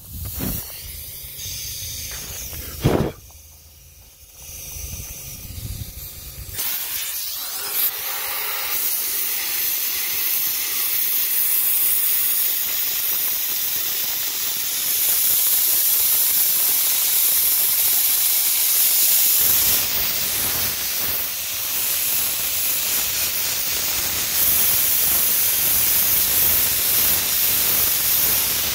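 Pressure-pot sandblaster nozzle blasting abrasive against a steel truck fender: a steady loud hiss that starts about six seconds in and runs on, stripping rust pits down to bare metal. A single sharp knock sounds about three seconds in, before the blasting starts.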